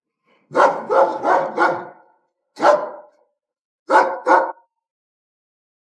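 A dog barking: a quick run of four loud barks, a single bark, then two more barks close together.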